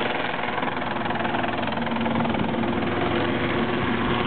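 Sikorsky S-76 helicopter hovering: steady rotor and turbine noise with a steady hum.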